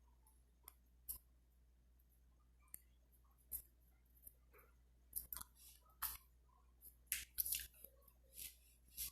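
Irregular light clicks and brief rustles from small objects being handled, about a dozen of them, coming more thickly in the second half.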